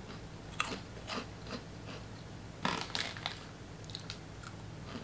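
Crunching and chewing of small tomato-flavoured ring-shaped chips (Yumos): a few short, sharp crunches, with a louder group of three about two and a half seconds in.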